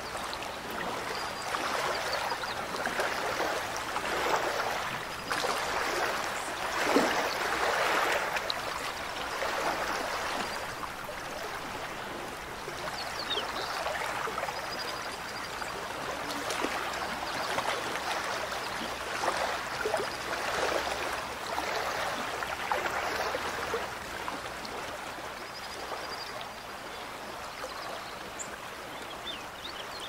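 Mountain stream running, a continuous rush of water that swells louder in the first third and then eases a little.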